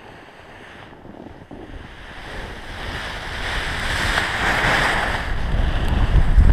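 Wind rushing over the microphone of a helmet camera, mixed with skis sliding over snow, growing steadily louder as a speedflyer accelerates downhill to launch the wing. Near the end it turns into heavy low buffeting.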